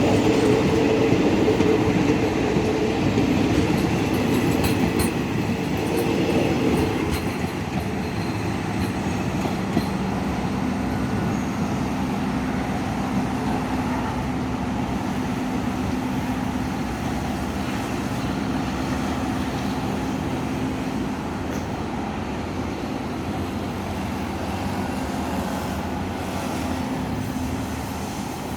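Diesel commuter train pulling out and running past, its wheels clattering over the rail joints, loudest for the first several seconds and then slowly fading. A steady low engine hum carries on under the rumble.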